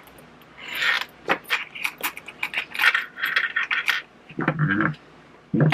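Fabric rustling with irregular clicks and light metallic jingling from the purse's metal zipper pulls as the stacked pockets are handled and positioned under the sewing machine's presser foot.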